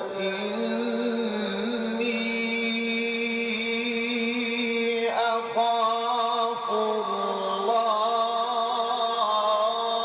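A male Quran reciter's voice in melodic mujawwad style, drawing out long sustained notes with slow ornamented shifts in pitch. There is a brief break and a change of note about five seconds in.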